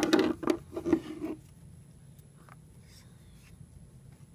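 Rough rubbing and rustling handling noise in a few bursts during the first second and a half, as craft supplies are picked up and moved close to the microphone. Then it falls to a low, quiet background.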